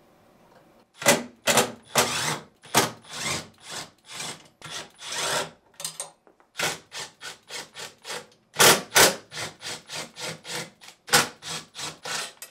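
A 3/8-inch nut driver backing out the screws that hold a refrigerator's freezer door: a string of short, irregular scraping and rattling bursts, starting about a second in.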